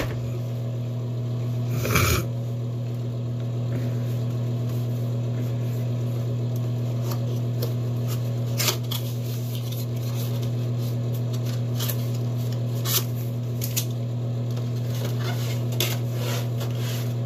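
Plastic product packaging being handled and opened: scattered clicks and crinkles, the loudest about two seconds in, over a steady low hum.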